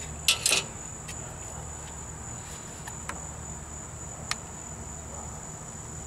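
A few light clicks as a drill bit is turned and seated in the Jeep Wrangler YJ's turn-signal switch, the sharpest about four seconds in, over a steady high-pitched whine and a low hum.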